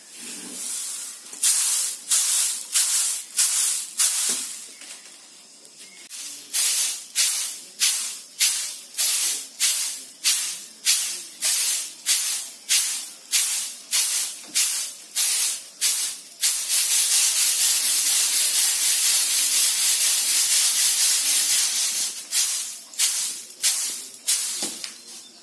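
Mustard seeds rattling and hissing across a bamboo-slat winnowing tray as it is tossed to clear away the chaff. The tosses are rhythmic, about two a second; in the middle they merge into a continuous rattle for about five seconds, and then separate strokes return near the end.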